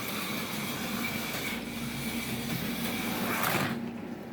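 HO-scale slot car running on its track, a steady small electric motor whine with the car's mechanical rattle on the rails, dropping away sharply near the end.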